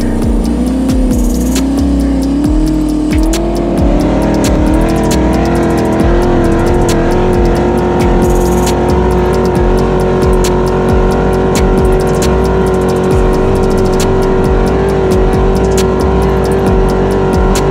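A dune buggy's 5.3-litre LS V8 with headers running under load as the buggy climbs a sand dune. The engine note climbs over the first few seconds, then holds steady at high revs.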